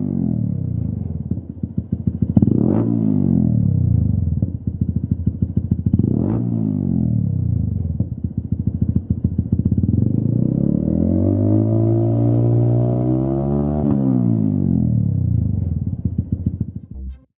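Honda CBF125's single-cylinder four-stroke engine running through a Lextek YP4 aftermarket silencer. It idles and is blipped in short, quick revs three times, then given a longer rev that is held for about four seconds before dropping back to idle.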